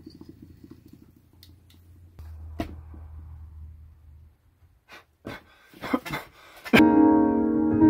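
A few sharp clicks as the Yamaha digital keyboard's panel buttons are pressed, then about a second before the end a loud sustained chord on an electric piano sound. A faint low hum comes before the clicks.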